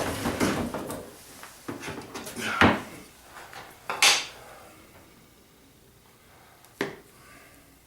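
Workshop handling noise: several knocks and scrapes of wooden boards being moved and set down, busiest in the first half, with one sharp knock near the end.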